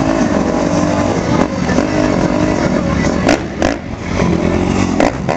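Dirt bike engine revving up and down as the stunt bike sits atop a jump ramp, with two sharp cracks about three seconds in and another near the end.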